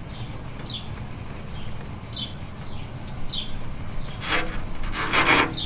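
Rubber fuel tank breather hose rubbing and scraping in short bursts as it is worked onto its pipe, loudest in the last second and a half. Faint short high chirps repeat about once a second behind it.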